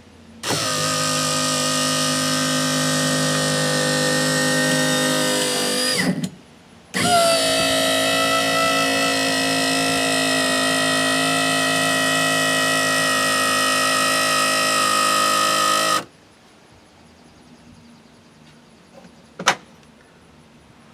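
The electric motor of an Atlas Micro Jack Plate actuator runs with a steady whine for about six seconds, stops briefly, then runs again for about nine seconds before cutting off. A single sharp click comes a few seconds later. The motor is running under power again after its brush cap was reinstalled: the repair has worked.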